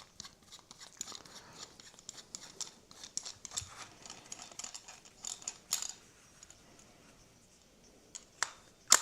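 Light, irregular clicking and scraping of small metal bolts and hand tools being handled on a model-airplane engine, with a pause and then a few sharper clicks near the end.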